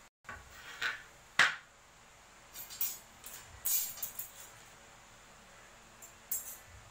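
A sharp knock as a wooden plank is set down on a concrete floor, then metal hand tools clinking and jangling several times as they are handled and picked up from the floor.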